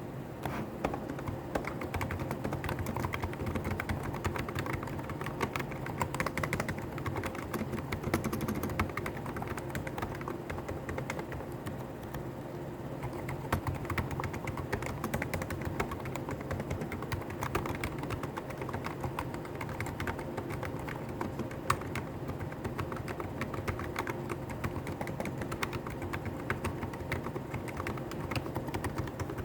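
Hansung GK893B Sports capacitive (contactless) keyboard being typed on, a fast, continuous stream of keystrokes.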